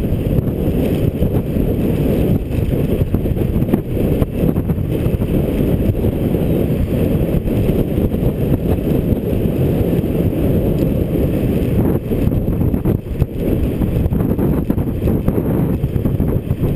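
Wind buffeting a GoPro's microphone as a folding bicycle coasts fast downhill: a loud, steady, low rumble that flutters without a break.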